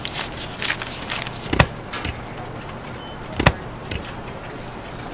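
A desk stapler clacking shut again and again over a steady low hum, with two loud clacks about one and a half and three and a half seconds in.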